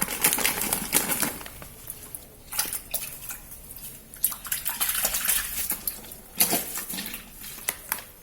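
Water splashing and sloshing with irregular knocks and clatter as clothes and detergent go into the half-filled wash tub of a twin-tub washing machine.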